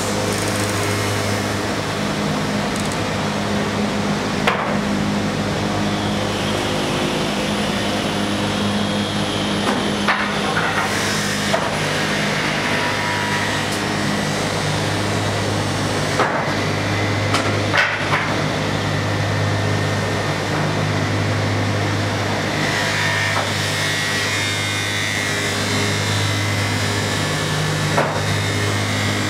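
Double-head pallet stringer notcher running with a steady electric motor hum, broken every few seconds by sharp knocks of wooden stringers being fed through and notched.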